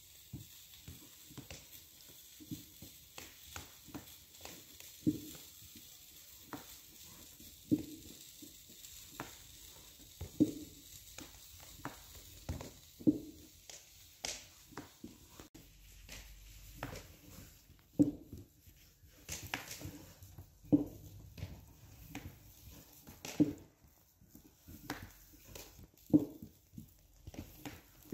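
A metal spoon patting and spreading chopped beef tripe filling onto a thin round of dough on a silicone mat. Soft dull pats come about every one to three seconds, with lighter spoon clicks and scrapes between them.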